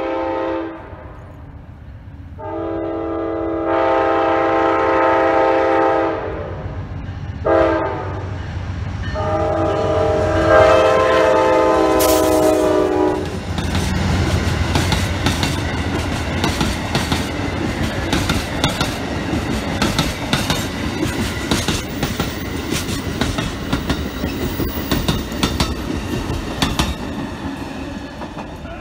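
Amtrak GE P42DC diesel locomotive's air horn sounding the grade-crossing signal as the train approaches: the end of one blast, then long, short, long. The locomotive and passenger cars then roll past close by, a steady rumble with rapid clickety-clack of wheels over the rail joints, easing off near the end.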